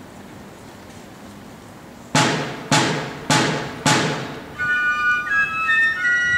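A fife and drum corps counting in a tune: about two seconds in, the rope-tension drums strike four loud unison strokes about half a second apart. About a second later the fifes come in with a high, shrill melody.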